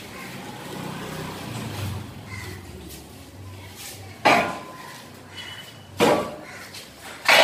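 Steel frame of a borewell drilling rig being shifted and dragged on the floor with a low scraping rumble, then three loud metallic clangs with a brief ring, roughly a second and a half apart, as it is knocked down into place.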